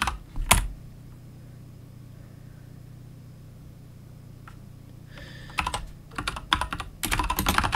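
Computer keyboard typing. Two sharp keystrokes come right at the start, then a few seconds with only a low steady hum, then quick runs of keystrokes through the last couple of seconds.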